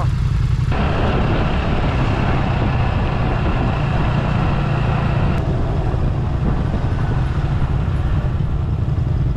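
Motorcycle engine running steadily while riding, with road and wind noise. A broader rush of noise joins about a second in and cuts off about five and a half seconds in.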